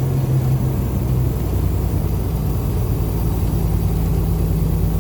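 Detroit Diesel Series 60 14-litre diesel engine of a loaded semi truck running steadily under way, with a deep, even drone. Its note shifts slightly higher about a second in.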